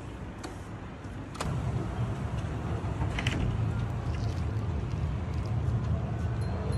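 Steady low rumble of outdoor street background noise, with no clear tone. It gets louder with a click about a second and a half in.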